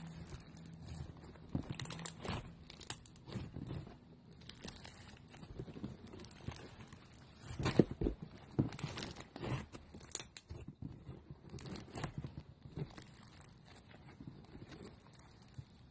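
Slime being squeezed and stretched by hand, giving irregular sticky crackles, pops and clicks with a steady high hiss behind them.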